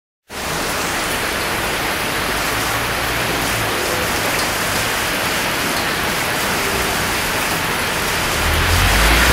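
Heavy rain pouring onto a road and pavement: a steady, loud hiss of falling rain and splashing that cuts in a moment after a brief silence. A low rumble joins underneath near the end.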